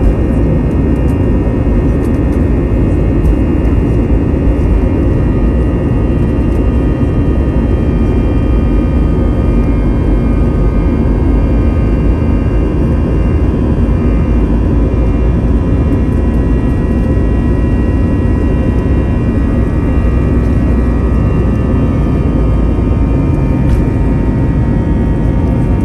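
Airbus A321-211's CFM56-5B turbofan engines at takeoff thrust during the takeoff roll, heard inside the cabin over the wing: a loud, steady roar with a buzzsaw drone of many steady tones from the fan, over the low rumble of the runway.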